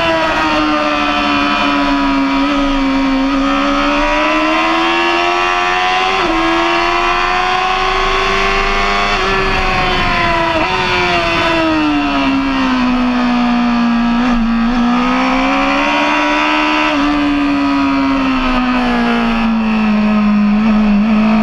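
Sportbike engine running hard at high revs under a steady rush of wind noise. Its pitch climbs and dips with throttle and gear changes, with quick steps as it shifts, then drops away as the bike slows for a corner.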